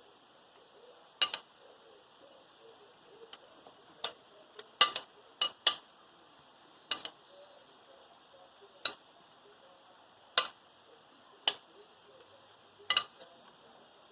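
Irregular light clicks and taps of kitchen utensils against a dish, about a dozen, with the loudest few close together near the middle, while lemon-cured fish slices are squeezed out and moved about.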